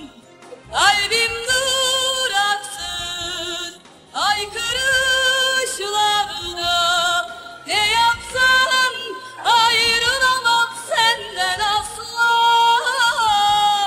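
Female voice singing long ornamented phrases with a wavering vibrato, about five phrases, each opening with an upward slide in pitch.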